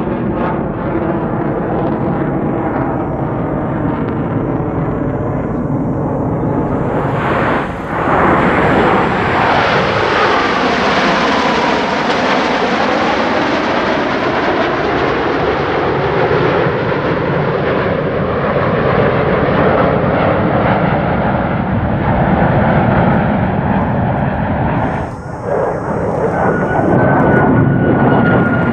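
Blue Angels F/A-18 Super Hornet jets flying past, loud and continuous. The noise swells about eight seconds in, with a falling whine as a jet passes, and a high whine comes in near the end.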